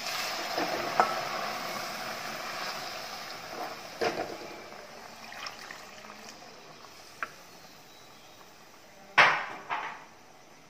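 Coconut milk pouring from a plastic container into a hot pot of ada in jaggery syrup, a hiss that fades over the first few seconds. A few knocks of the wooden spatula and container against the metal uruli, the loudest about nine seconds in.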